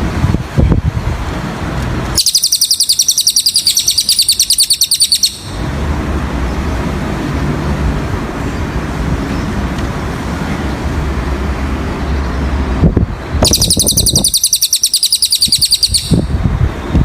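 Cililin bird song: two high, fast trills of rapidly repeated notes, each about three seconds long and about ten seconds apart, over a steady low rumble.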